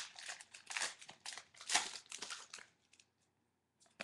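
Foil trading card pack wrapper crinkling and crackling as hands tear it open. The rustling stops about two and a half seconds in.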